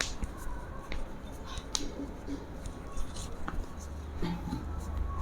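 A few short sharp clicks scattered over a low steady hum, from hands-on handling during a chiropractic adjustment.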